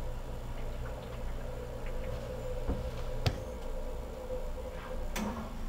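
Steady low room hum with two sharp clicks, about three and five seconds in, from handling the phone and the clarinet; the clarinet is not played.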